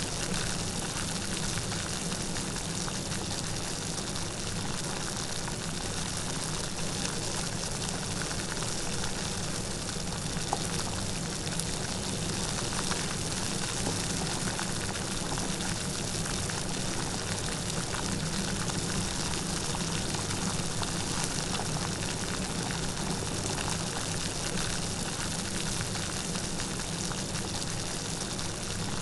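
Steady light rain falling, a continuous hiss of many small drops with fine patter.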